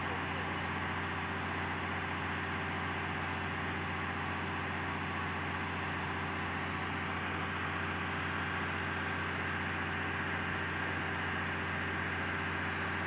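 Three-phase electric floating pond aerator running steadily: a constant motor hum under the even hiss of the water it churns and sprays.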